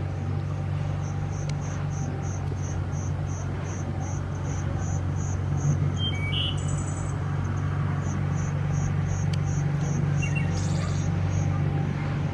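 A cricket chirping in a steady rhythm, about three chirps a second, over a steady low hum. Two brief higher chirps break in about halfway and near the end.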